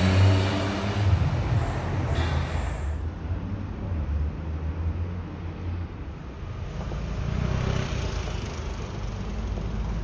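A motorcycle engine running close by, fading away within about the first second, followed by the steady low rumble of city street traffic.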